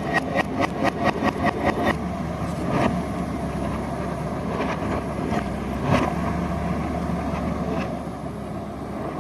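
Diesel engine of a JCB 3DX backhoe loader running under work. For about the first two seconds there is a rapid rhythmic clatter, about five or six beats a second. Two sharp knocks come later, one about three seconds in and one about six seconds in.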